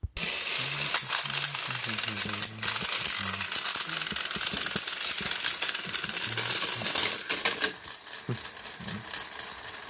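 Battery-powered Thomas & Friends toy engines running hard against each other on plastic track. Their motors and plastic gears give a loud, continuous whirring rattle with fast clicking.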